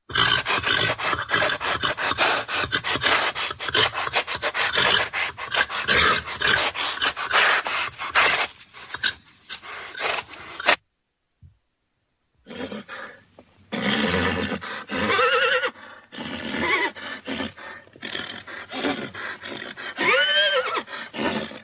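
Horse sounds in two clips separated by a short gap. The first is about ten seconds of harsh, noisy, rapid sound. The second has pitched calls and ends with a clear whinny that rises and falls.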